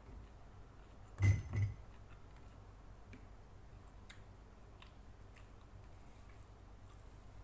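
Eating by hand from a plate: two dull knocks a little over a second in, then a few faint scattered clicks as fingers pick food off the plate.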